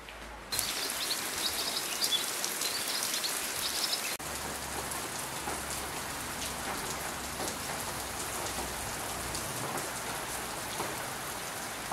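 Rain falling steadily, a dense hiss with small scattered drop ticks, starting about half a second in.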